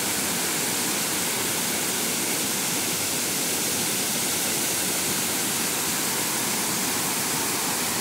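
Small waterfall rushing steadily down over rocks, a continuous even wash of water noise.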